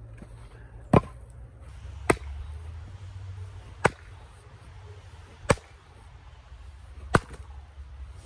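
An axe striking firewood on a chopping block five times, about one and a half seconds apart: sharp chops of wood being split.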